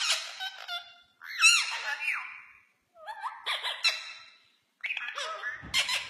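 Indian ringneck parakeets chattering back and forth in four short bouts of squeaky, pitch-gliding calls and mimicked talk, with brief pauses between them.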